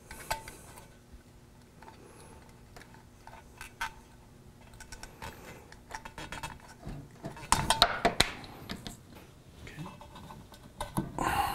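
Razor blade scraping and clicking against a painted motorcycle wheel rim at the base of a rubber valve stem as the stem is pried out, with a burst of louder scrapes and knocks a little past the middle.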